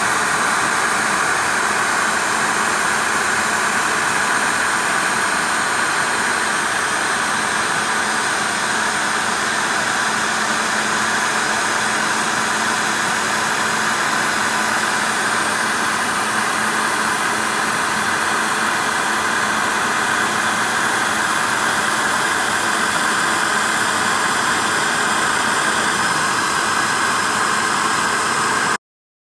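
CNC milling machine's spindle running steadily, a loud even whir, as its small cutter traces a curved outline through a sheet of wood veneer. It cuts off suddenly near the end.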